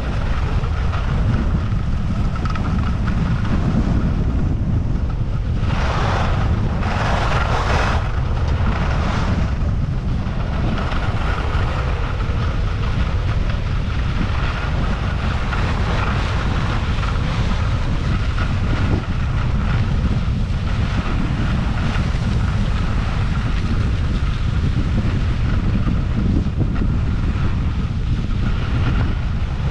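Wind buffeting a GoPro's microphone on a skier moving downhill, a steady low rumble, with the hiss of skis running over groomed snow. Louder rushes of noise come about six seconds in and again about seven to nine seconds in.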